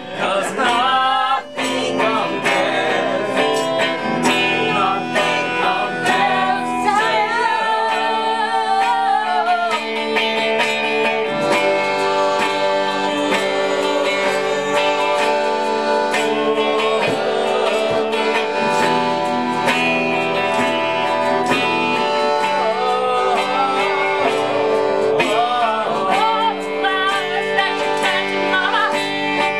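Small acoustic band playing: a concertina holding steady chords under a strummed guitar. A singer's voice comes in over them for several seconds early on and again near the end.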